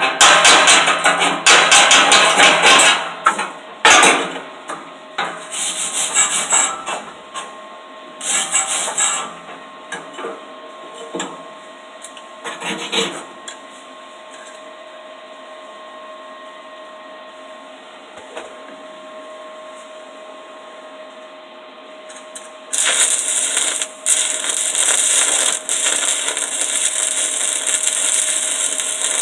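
Stick-welding arc burning 3/32-inch 7018 low-hydrogen rod at 70–75 amps, with its steady crackling hiss. It runs for a few seconds, breaks into short bursts, stops for several seconds, then strikes again and runs steadily near the end.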